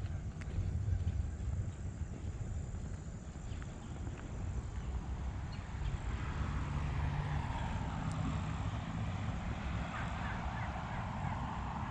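Outdoor park ambience heard on a walk: a steady low rumble under a faint, steady high tone. About halfway through, a louder wash of distant sound rises in the middle range.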